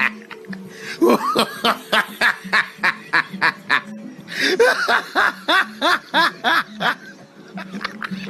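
Laughter in two bouts, each a quick string of short 'ha' pulses at about three a second, with a brief break about four seconds in.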